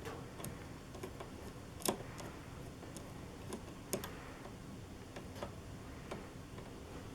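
Scattered light clicks and taps of small parts and tools while a hammer is fitted into the action of a Yamaha CP-80 electric grand piano, with two sharper clicks about two and four seconds in.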